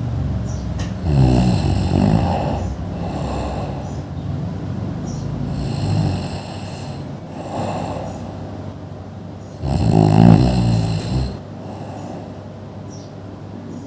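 Loud snoring: three snores about four seconds apart, each a rough buzzing breath, with quieter breathing between them.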